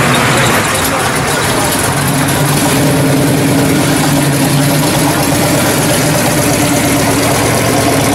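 Engine of a classic first-generation Chevrolet Camaro convertible running steadily at low speed as the car rolls slowly past.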